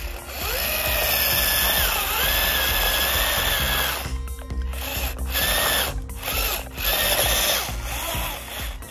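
Small electric power tool running, its motor whine rising as it spins up and dipping and recovering as it bites into the work, stopping and restarting a few times.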